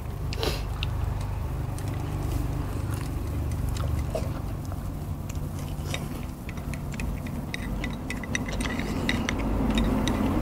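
Two people eating with chopsticks from small porcelain bowls: scattered light clicks of chopsticks on the bowls and the sound of chewing fried fish and rice, over a steady low rumble.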